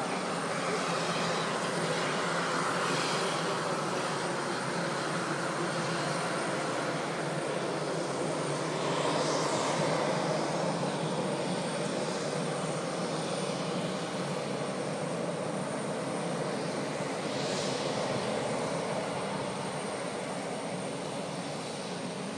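Jet airliner engine noise: a steady rumble with a thin, constant high whine over it.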